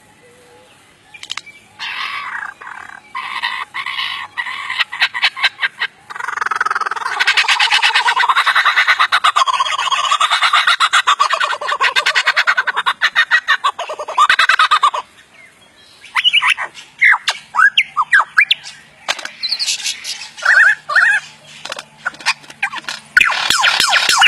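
Lyrebird singing its mimicry of sound effects: a run of quick sharp clicks, then a long fast rattling stretch, then short whistled notes sliding up and down after a brief pause.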